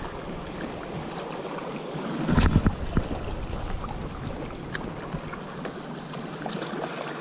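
Wind buffeting the microphone over small waves lapping against shore rocks, with a louder rush about two and a half seconds in.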